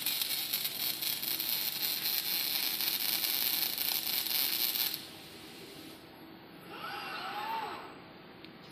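Robotic welding arc crackling and sizzling steadily, cutting off abruptly about five seconds in. A quieter stretch follows, with a short tone gliding up and down near the end.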